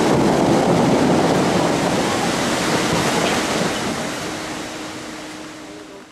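Dubai Fountain water jets rushing and splashing down onto the lake as a loud, even wash of spray noise. It fades away over the last two seconds as the jets fall.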